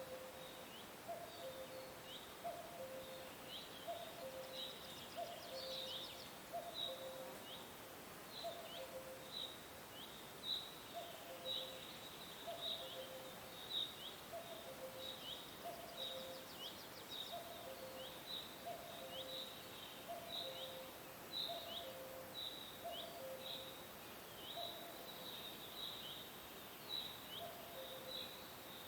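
Birds calling: short high chirps, a couple each second, over a low two-note call that repeats about once a second, with a faint steady hiss beneath.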